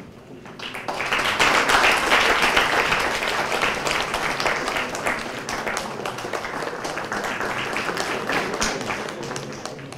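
Audience applauding, starting about a second in and slowly tapering off near the end.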